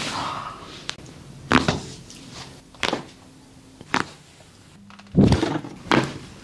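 Joints cracking during chiropractic-style body adjustments: about five sharp cracks and thuds spaced a second or so apart, the loudest about five seconds in.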